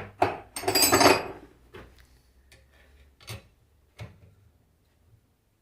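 Metal tools and parts clinking and knocking on a workbench: a quick run of ringing clinks in the first second or so, then a few lighter single taps.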